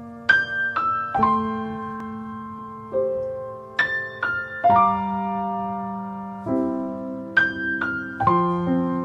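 Slow, gentle solo piano music: single notes and chords struck every half second to two seconds and left to ring.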